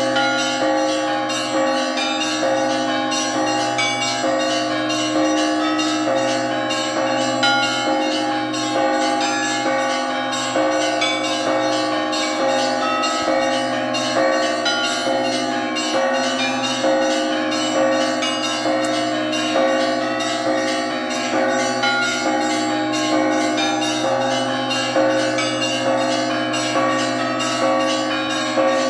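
Russian Orthodox church bells rung together in a continuous festive peal. Small bells are struck in quick succession, many strokes a second, over the lingering hum of the larger, lower bells.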